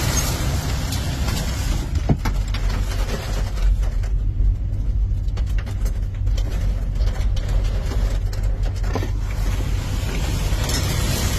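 Tornado wind buffeting the microphone: a loud, deep, steady rumble with a rushing hiss that eases off in the middle and builds again near the end, with scattered sharp clicks.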